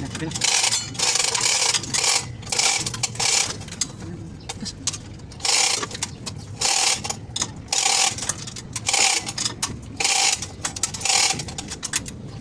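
Manual chain hoist being worked to lower an engine: bursts of rattling chain and ratcheting clicks, one after another with short pauses, and a longer pause near the middle.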